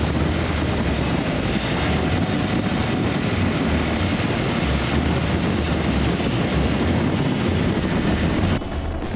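Motorcycle cruising at about 120 km/h: a steady rush of wind and road noise over a low engine drone. It drops in level shortly before the end.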